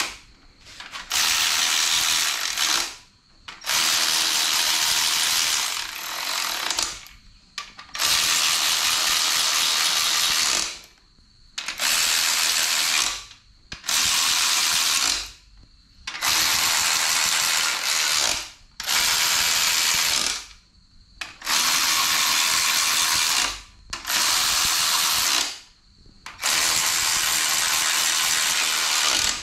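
A ratchet wrench spinning bolts down, plausibly the main bearing cap bolts. It comes in about a dozen even runs of one to three seconds each, with short pauses between them.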